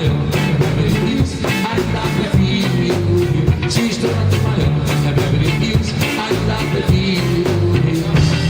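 A live band playing an upbeat dance song, with a busy, steady drum and percussion beat over a stepping bass line.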